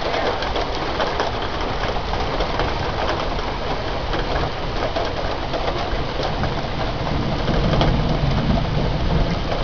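Heavy rain pouring down: a steady hiss of many fine drop ticks. A low hum joins about three-quarters of the way through.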